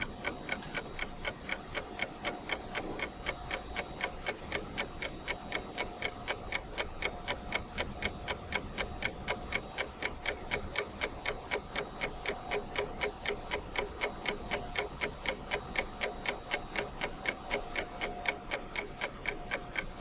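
Clock-ticking sound effect: a fast, even run of ticks, each one alike, going on without a break.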